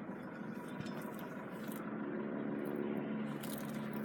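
A vehicle engine running steadily, its low hum slowly growing louder.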